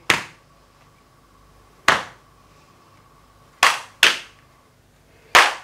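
Six sharp hand slaps in a body-percussion tapping rhythm: two single slaps, then two quick pairs.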